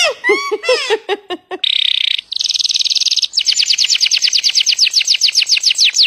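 Domestic canary singing in a cage: a couple of harsh buzzy notes, then a fast rolling trill of repeated falling notes, about a dozen a second. It is preceded by about a second and a half of high-pitched, speech-like chatter.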